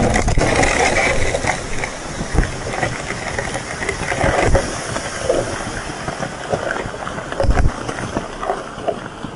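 Aftermath of a 40-pound tannerite blast on a beaver dam. The blast's rumble dies away while mud clods and debris rain down with scattered thumps, a few of them heavier. Water starts rushing through the breached dam.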